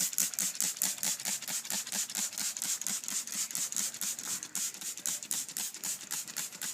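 Hand trigger spray bottle pumped rapidly, a quick hissing spray about five times a second, as soapy water is sprayed over an inflated inner tube around its valve stem to find a leak.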